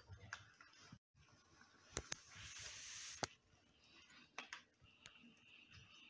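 Domestic cats eating from bowls on a wooden floor: scattered faint clicks of chewing and bowl contact, with a hiss lasting about a second near the middle, set between sharper clicks.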